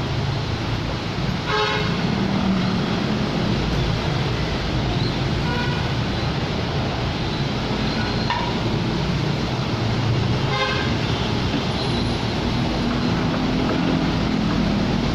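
Honda Accord 3.5 V6 engine running steadily while misfiring, a fault the owner traced to the rear camshaft timing being out of line because of the timing belt. Two brief toots sound over it, one about a second and a half in and one about ten seconds in.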